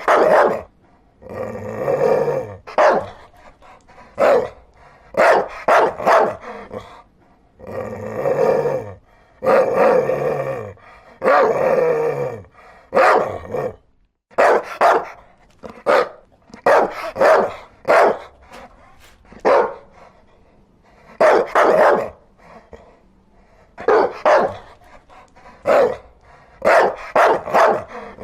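A dog barking over and over: some longer, drawn-out barks in the first half, then many short barks, often in quick pairs or threes, with brief pauses between.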